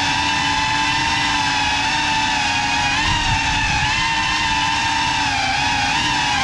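Ducted 3.5-inch FPV cinewhoop drone (GEPRC Cinelog 35 on 6S) in flight: a steady, high motor and propeller whine whose pitch wavers slightly with small throttle changes, heard through the onboard camera's microphone.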